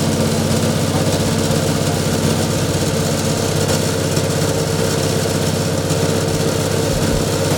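Coconut milk press machine running steadily on a test run, its motor giving a constant, unchanging drone with a steady whine above it.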